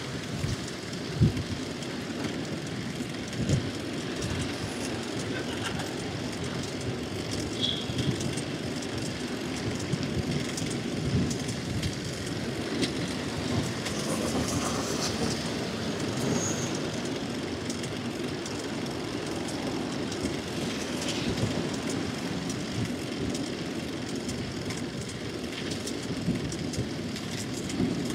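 Steady rumble of tyre, road and wind noise while riding a bicycle through city traffic, with occasional knocks as the bike jolts over bumps in the road.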